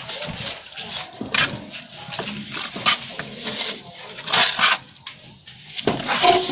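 Steel plastering trowel throwing and scraping wet cement mortar onto concrete, a short scrape or slap about every one and a half seconds.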